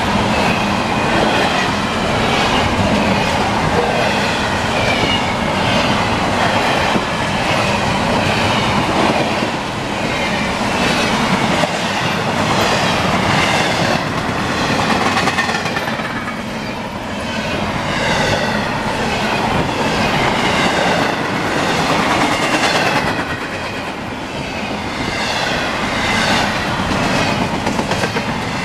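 A double-stack intermodal container freight train rolling past: the steady rumble of its well cars, with the wheels clacking in a regular repeating rhythm. The sound dips slightly a few times as the cars go by.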